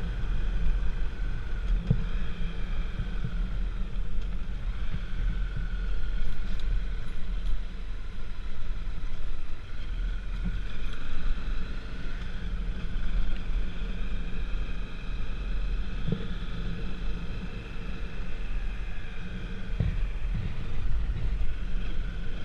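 A motor vehicle under way: a steady low running drone with a higher whine that slowly rises and falls in pitch, and a few light knocks.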